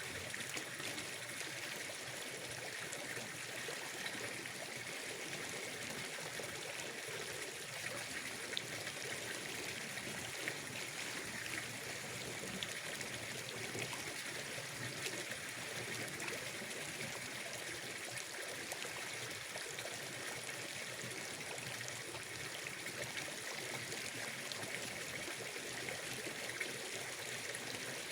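Water trickling and flowing steadily, an even ambience that does not change, with a few faint ticks.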